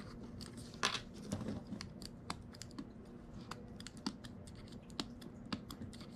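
Light clicks and taps of a small screwdriver and metal parts as wheel bearings are pushed out of an R/C buggy's aluminium rear hub carrier, with a sharper click about a second in.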